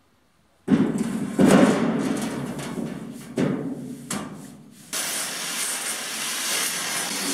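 A loose steel sheet-metal panel clanking and rattling as it is handled against the frame, three loud hits with ringing tails. About five seconds in, an angle grinder grinding steel takes over as a steady, even grinding noise.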